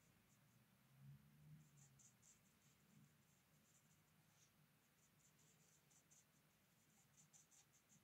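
Near silence, with faint, irregular scratching of a fine watercolour brush on paper.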